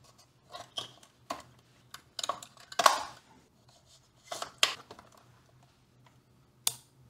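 Vintage transistor radio's plastic battery-compartment cover slid open and shut, with AA batteries fitted against their contacts: a run of plastic clicks and scrapes, the loudest a longer scrape about three seconds in. A sharp click near the end as the off/volume knob is turned on.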